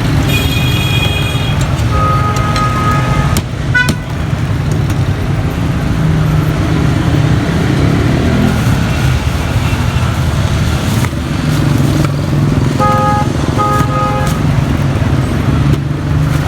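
Street traffic running steadily, with vehicle horns honking: a high horn right at the start, another horn a couple of seconds in, and two short toots near the end.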